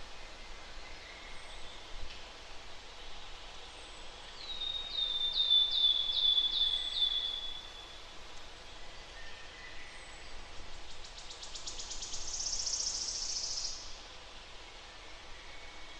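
Songbirds singing over a steady background hiss. One bird gives a series of about seven down-slurred whistled notes, and a few seconds later comes a fast, high trill. Faint, short, high chirps repeat every couple of seconds.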